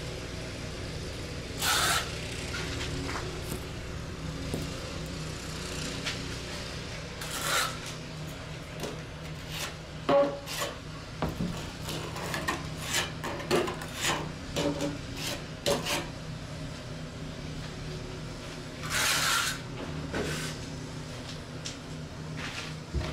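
Hand work with tiles and tools on a bare concrete floor. There are a few short scraping strokes near the start, middle and end, and a run of sharp clicks and knocks in the middle, all over a steady low hum.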